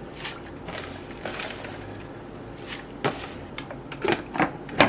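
Scattered light knocks and clicks of things being handled, like cupboard or drawer doors and objects set down, in a small room; the knocks come closer together and sharper near the end, the loudest just before it ends.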